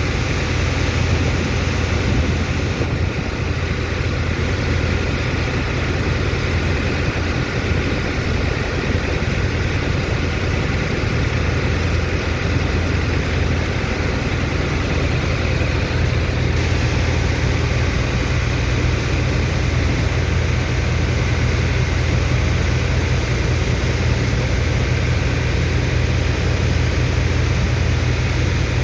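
Sand dredger's pump engine running steadily, a continuous low drone with a steady hiss above it.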